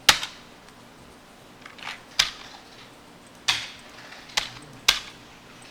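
Six or seven sharp single clicks at a computer, spaced irregularly, the first and loudest right at the start.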